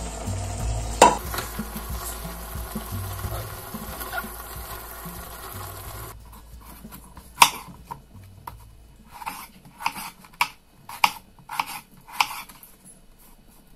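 Chopped vegetables stirred into a stainless steel pot of meat with a spoon, over a steady hiss, with one sharp knock on the pot about a second in. After about six seconds, a kitchen knife cuts raw potato on a wooden cutting board: one cut, then about six cuts in a quick run.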